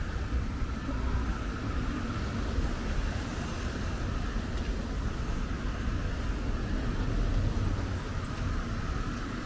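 Steady outdoor street ambience: a continuous low rumble of traffic.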